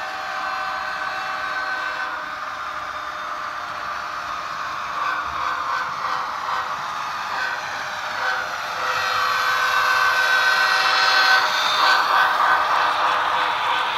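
HO scale model freight train running along the track: a steady tonal hum with rail clatter, growing louder about nine seconds in as the lead diesel locomotives pass close by.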